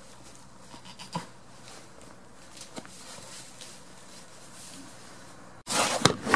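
Faint rustling in straw with a few light knocks, then, about five and a half seconds in, sudden loud rustling and sharp knocks as the camera is moved or bumped against wooden boards.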